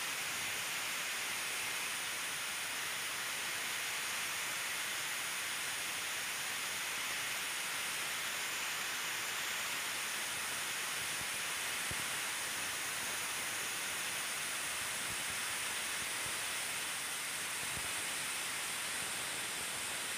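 A steady, even hiss with nothing else over it.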